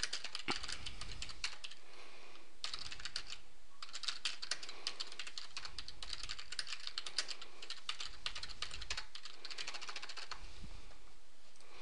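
Computer keyboard typing, rapid keystrokes in runs with short pauses between them.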